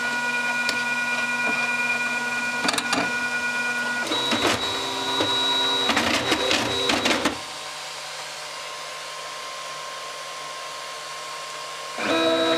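FlashForge Dreamer 3D printer's stepper motors whining at steady pitches that switch as the moves change. A run of clunks and knocks comes between about four and seven seconds in. The motors then go quieter, and louder again near the end.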